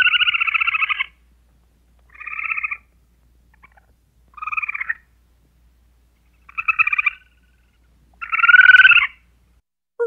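Squirrel calling in five bursts of rapid chattering, spaced about two seconds apart.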